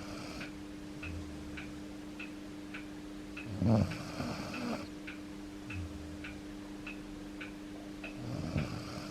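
Aging Akita dog snoring in its sleep, with a loud snore about three and a half seconds in and another near the end, and quieter breaths between. The owner puts the louder snoring down to the dog getting older.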